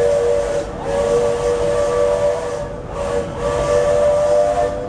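Disneyland Railroad steam locomotive whistle blowing a chord of two steady tones in a series of long blasts, each lasting over a second with short gaps between them.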